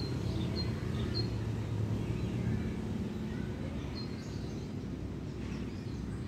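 Steady low outdoor background rumble, with a small bird chirping briefly, three times in the first second or so and again about four seconds in.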